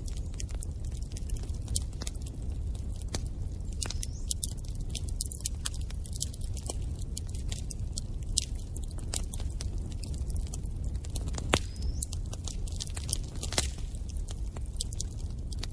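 Wood fire burning in a fireplace, crackling and popping irregularly over a steady low rumble of the flames, with a couple of brief high whistles.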